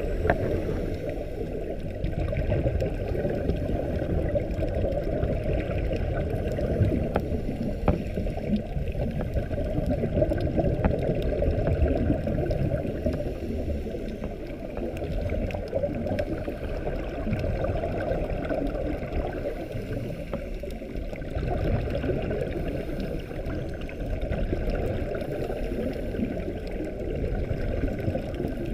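Muffled underwater noise picked up by a GoPro inside its waterproof housing: a steady low rumble of moving water, with a few faint ticks here and there.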